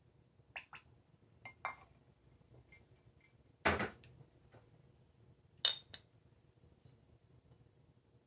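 Glass decanter and tumbler clinking and being set down on a table: a few light clinks in the first two seconds, then two heavier glass knocks about two seconds apart, the first the loudest.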